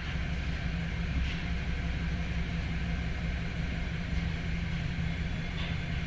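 2008 Chevrolet Silverado's 5.3-litre V8 idling steadily while misfiring on cylinder 6. The cylinder seems to have no compression.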